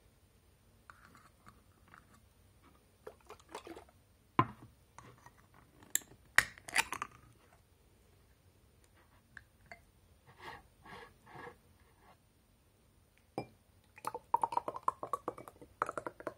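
A can of thick Japanese corn soup being handled, opened and poured into a glass: scattered clicks and knocks, with sharp knocks about four and thirteen seconds in, and a quick run of wet plops and drips near the end.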